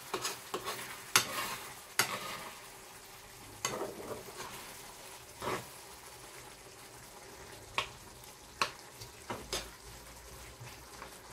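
Metal spoon stirring tin mackerel in a tomato and vegetable sauce in a frying pan: irregular scrapes and clinks of the spoon against the pan over a faint steady sizzle of the cooking sauce.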